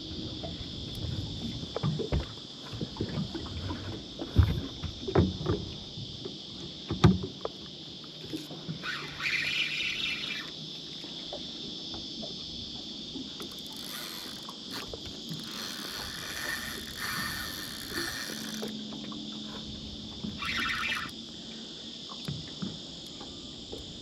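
Knocks and thumps on a small fishing boat during a fish fight, loudest between about four and seven seconds in, over a steady high insect drone. There are two short rasping bursts, one about nine seconds in and one about twenty seconds in.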